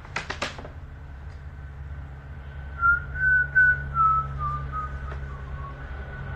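A man whistling a short tune through pursed lips: a string of about eight short notes that drift downward in pitch. Three quick taps come just before it.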